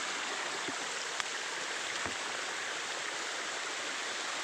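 Steady rush of water from a waterfall and its stream, with a couple of soft low thumps.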